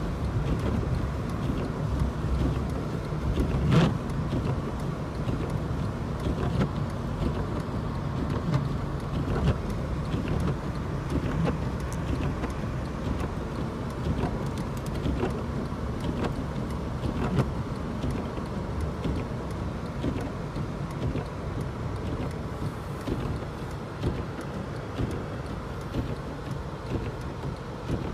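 Car driving on a snow- and slush-covered road: steady low tyre and engine rumble, with faint scattered ticks and one sharper knock about four seconds in.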